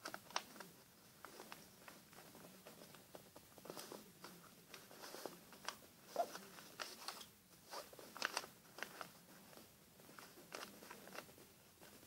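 A sheet of paper being folded and creased by hand: faint, irregular rustling and crinkling, with a few sharper crackles.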